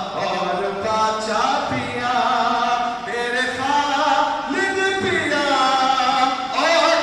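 A man's solo voice reciting a naat unaccompanied, a cappella, singing long melodic phrases whose held notes rise and fall.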